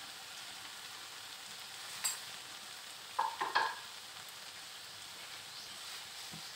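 Butter melting with a steady sizzle in a hot frying pan of cooked chicken and vegetables. A sharp click about two seconds in and a few brief clinks just after three seconds.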